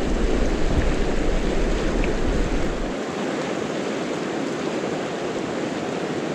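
Fast mountain river rushing over a shallow riffle, a steady noise of running water. A deep rumble sits under it for the first three seconds or so, while the camera is at the water surface, then drops away.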